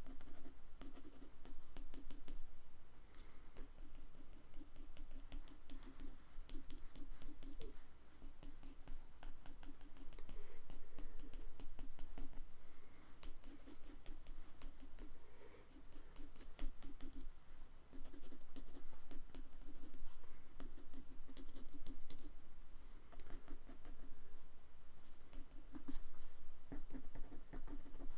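A pen drawing on paper: many short, quick scratching strokes as the tip is worked back and forth over the sheet, with brief pauses now and then.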